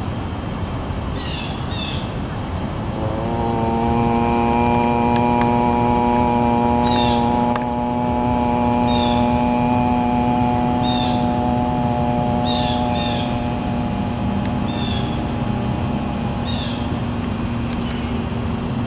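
A man's voice holding one long, steady hum at a low pitch, starting about three seconds in and held for some fifteen seconds, as in meditation. A bird chirps every couple of seconds over steady outdoor background noise.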